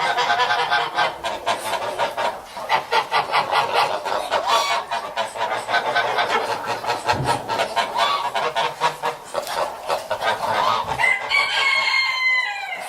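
A flock of geese cackling and honking in a dense, continuous chorus of overlapping calls, with one longer, clearer call near the end.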